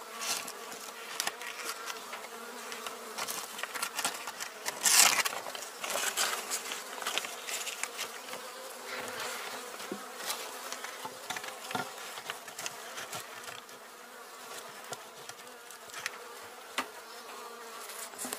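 Honey bee colony humming steadily from an opened wooden hive. Scattered sharp wooden clicks and knocks come as hive frames are handled, with a louder rustling scrape about five seconds in.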